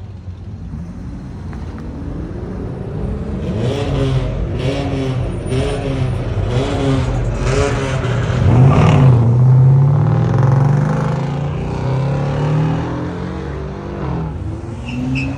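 Car engines revving and accelerating away. One engine is revved up and down several times in quick succession, then a car accelerates past, loudest about nine seconds in.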